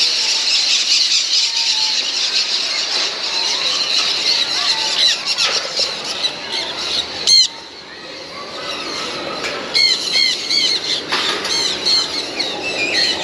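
Many caged birds chirping and squawking at once in a dense, high-pitched chorus. About seven seconds in one loud, sharp squawk stands out, and near the end one bird repeats a short rising-and-falling call several times.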